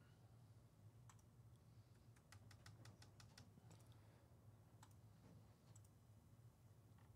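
Faint clicking and typing on a computer keyboard: single clicks here and there and a quick run of about eight keystrokes a couple of seconds in, over a low steady hum.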